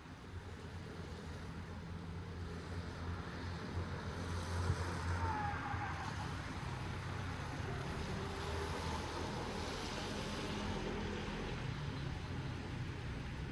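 A low, steady engine hum under a constant hiss, swelling somewhat about four seconds in and then holding steady.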